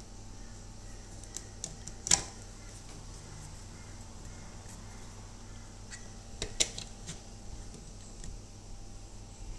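A few sharp clicks in two short clusters, the loudest about two seconds in and another group around six to seven seconds in, over a steady low hum.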